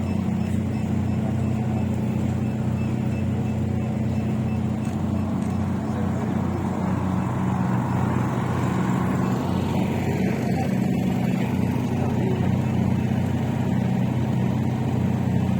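A steady low engine hum running throughout, with background noise.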